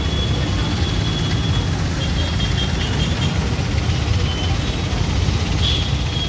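Diesel engine of an ACE 14XW pick-and-carry crane running steadily at idle, a constant low rumble.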